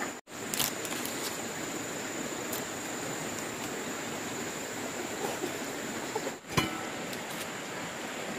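Steady outdoor background noise with a thin, steady high tone over it and a few faint clicks and handling sounds; the sound cuts out for an instant twice.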